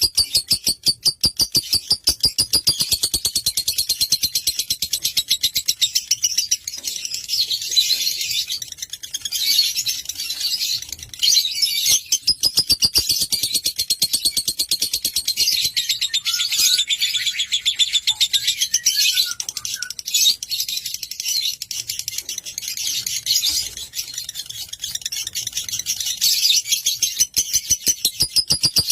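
Lovebird singing a long, continuous, high-pitched chattering song of rapid chirps, many a second, with no break.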